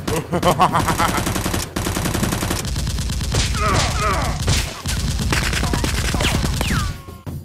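Rapid machine-gun-style gunfire sound effects dubbed over toy blasters, firing in continuous bursts. A man's cries break in partway through. The firing stops just before the end.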